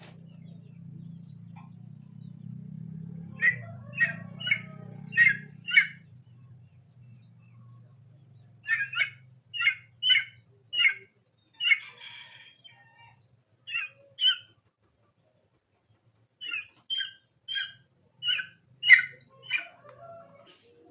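A bird gives short, sharp calls about two a second, in runs of five to seven with pauses between, and one pair of calls in the middle.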